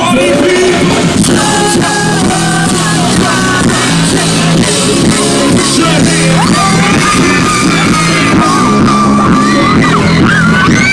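Loud live concert music with a singing voice over the stage sound system, with yells from the crowd close by; a sung note is held for a few seconds past the middle.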